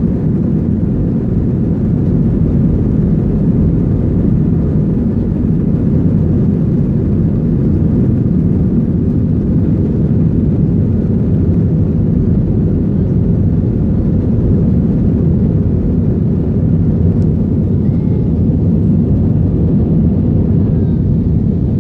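Airbus A320's twin jet engines at takeoff power, heard from inside the passenger cabin: a loud, steady rumble through the takeoff roll and the climb-out.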